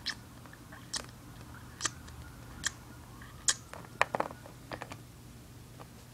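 Small plastic Littlest Pet Shop toy figures being handled, making a run of sharp clicks and taps about one a second, with a quick cluster about four seconds in, over a faint steady hum.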